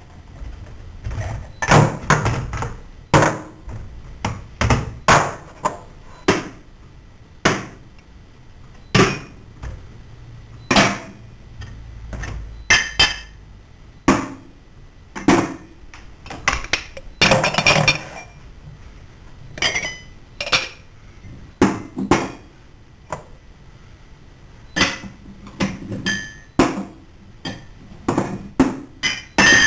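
Kitchenware being handled: irregular knocks, clanks and clinks of pots, dishes and utensils, some strikes ringing briefly.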